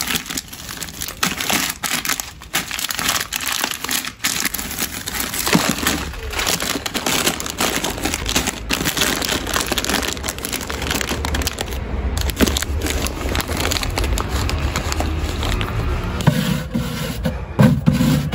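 Plastic bags and grocery packaging crinkling and rustling as they are handled, with scattered light knocks.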